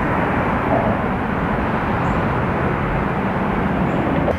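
Steady rush of road traffic, a constant noise with no single vehicle standing out.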